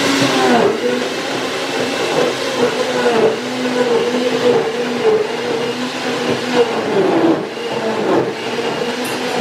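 Electric blender running at speed, blending chopped carrots with water for juice: a steady motor hum and whir whose pitch dips briefly now and then as the blades take the load.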